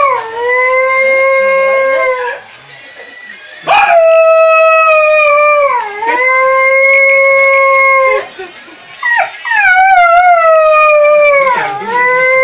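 A man imitating a dog howling: three long, loud howls, each sliding down in pitch and then holding a steady note, with short breaks between them.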